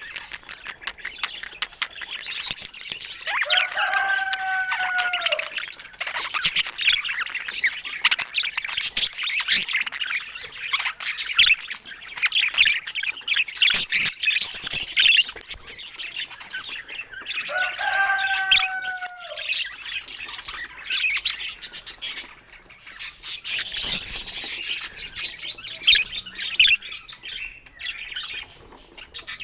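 Budgerigars chattering and warbling in a steady, busy stream of fast chirps and squawks, with two longer, lower calls that bend in pitch, one near the start and one about halfway through.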